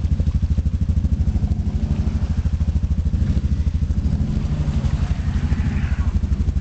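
ATV engine running at low speed, a steady, rapid low pulsing.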